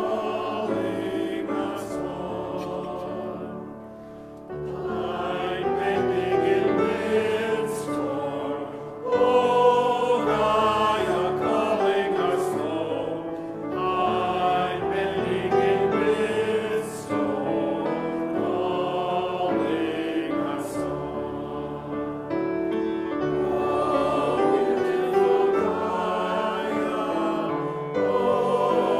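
Church choir singing a hymn, with a brief pause between phrases about four seconds in.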